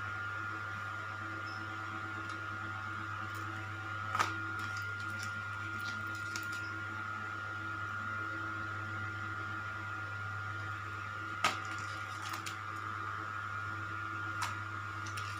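Steady electrical hum with a constant high-pitched tone over it, broken by a few sharp clicks, the two loudest about four and eleven seconds in.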